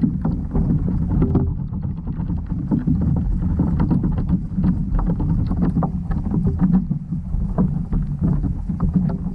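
Underwater noise picked up by a GoPro in its waterproof housing: a steady, muffled low rumble with many faint scattered clicks and ticks.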